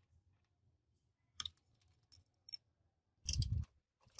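A few sparse metallic clicks and clinks of a rusty steel bracket and tools being handled, then, a little over three seconds in, a short burst of rapid clicking from a ratchet wrench turning a bolt on a truck air compressor.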